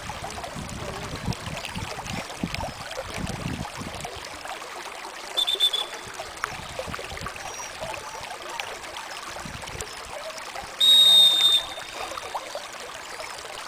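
Two blasts on a dog-training whistle, a short one about five seconds in and a louder, longer one near eleven seconds, each a single steady high note. Underneath runs a steady hiss of lapping lake water.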